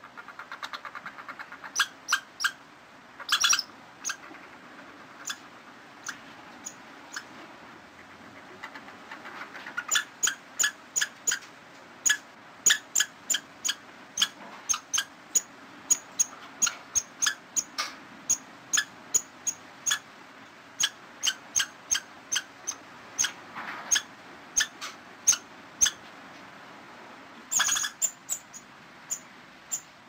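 Squirrel chattering: a long series of sharp chips, roughly two a second, broken by a few quick rattling runs.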